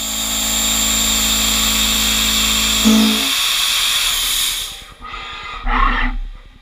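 Half-inch Gorilla Mill Yeti end mill full-slotting 4140 pre-hard steel in a CNC mill at 3608 RPM: a steady, high-pitched cutting whine over a hum. The cutting tones stop about three seconds in, and the remaining machine noise fades out, with a brief louder sound near the end.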